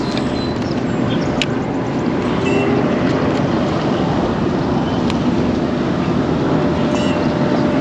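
Steady wind noise on the microphone aboard a fishing boat, with a faint steady hum underneath and a few light ticks.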